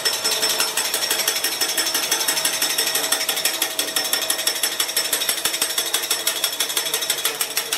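Two metal spatulas clattering rapidly and evenly against a steel teppanyaki griddle as the chef chops and works the food, with a metallic ring. The clatter stops abruptly near the end.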